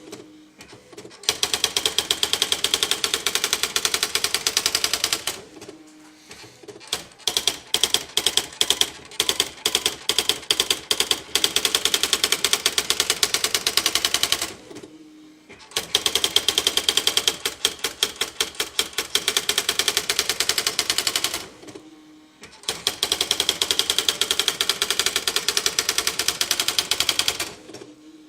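Computerized Smith Corona electronic typewriter printing its built-in demo text by itself: rapid, machine-paced key strikes in runs of several seconds, with a brief pause about a second long between runs, four times.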